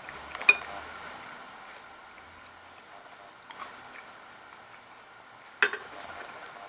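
A spoon clinking sharply against a dish twice, about five seconds apart, with a few faint ticks between.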